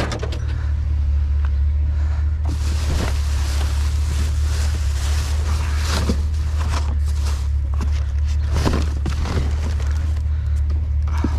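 Truck engine idling steadily, a constant low hum. From about two seconds in, scattered knocks and rustling from items being handled sound over it.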